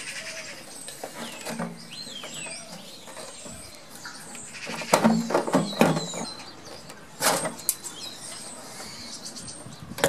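Clunks and knocks of a Suzuki GSF600 Bandit's fuel tank being unfastened and lifted off the frame, loudest in a cluster about five to six seconds in and once more just after seven. Birds chirp in the background early on.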